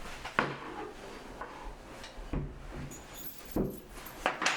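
A few short, sharp knocks and clatters as wooden loom parts are handled and knocked together while the loom is taken apart; the loudest comes as a double knock near the end.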